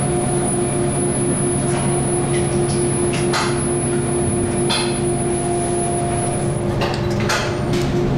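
Fluoroscopy X-ray unit running with a steady hum of several low tones and a high whine that cuts off near the end, with a few clicks from its control console.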